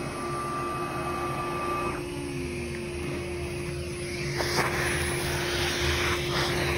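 Dust-collection hose vacuuming wood chips out of a freshly CNC-routed mortise: from about four seconds in, a louder hiss of suction with short rattling bursts as chips are drawn in, over a steady machine hum. A high steady whine cuts off about two seconds in.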